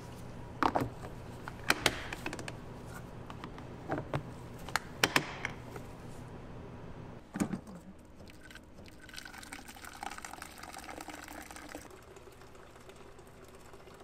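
Several sharp clacks and knocks in the first half, then, from about eight seconds in, water running from a countertop water dispenser's tap into a plastic pitcher for a few seconds.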